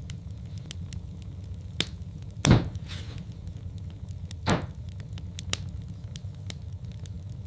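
Log fire crackling in a fireplace: scattered sharp crackles over a low steady rumble, with two louder pops about two and a half and four and a half seconds in.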